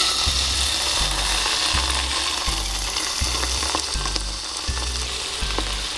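Miso-marinated beef sizzling as it goes into a lightly oiled nonstick frying pan over low heat. The sizzle starts at once, is loudest in the first second, then settles into steady frying.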